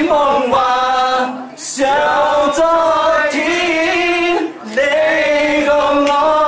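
A man singing unaccompanied, holding long notes, with other men's voices joining in; three sung phrases broken by two short pauses for breath.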